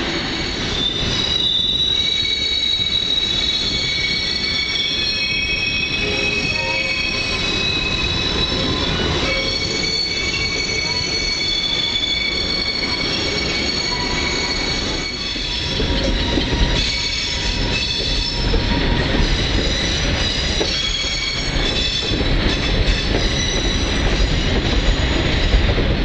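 Steel wheel flanges of a passenger train squealing on a curve, several high tones that shift and come and go, over the steady rumble and clatter of the moving cars. About halfway through, the low rumble grows heavier, with scattered knocks and clanks.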